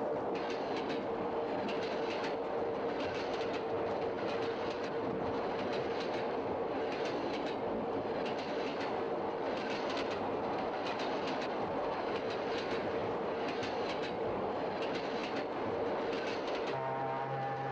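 Passenger train running along the track: a steady rumble and hum with a regular clickety-clack of the wheels over rail joints. Near the end a low, steady horn tone with many overtones starts sounding.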